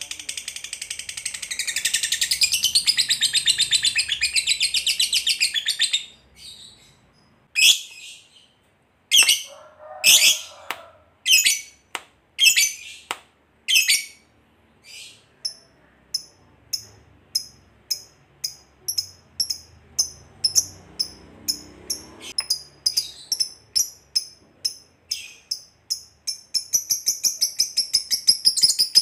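Lovebird calling in a long, rapid, high-pitched chattering trill (ngekek) for the first six seconds, then a handful of separate sharp loud calls, then a run of short quick chirps about three a second, with the continuous chatter starting again near the end.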